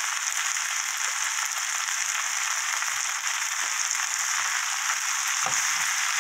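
Aged kimchi and fish cake sizzling steadily in hot oil in a frying pan, a continuous even hiss, with the spatula starting to stir the pan near the end.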